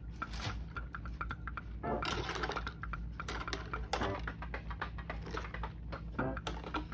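Grey plastic model-kit sprue handled and set down on a table, with a run of light plastic clicks and taps as the parts knock against the table and each other.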